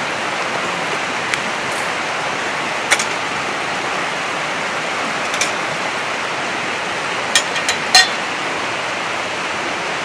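Wood fire burning in a small steel fire pit, a steady hiss with scattered sharp cracks, the loudest of them coming in a quick cluster about seven to eight seconds in.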